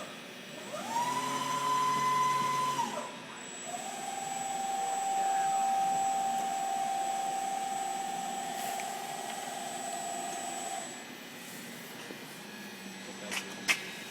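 Axis drives of a Dynapath Series 500 CNC bed mill whining through two axis moves under program control. The first rises to a steady high whine, holds for about two seconds and drops away. After a short pause a second, slightly lower whine holds for about seven seconds and stops.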